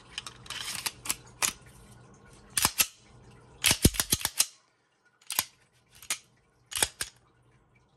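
Pistol slide being fitted onto a Polymer80 frame's rails and racked by hand: sharp metallic clicks and clacks, with a quick flurry about four seconds in, then three single clacks about three-quarters of a second apart.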